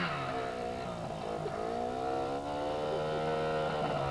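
Mini bike's small single-cylinder engine running, its pitch rising and falling in slow swells as the throttle is worked.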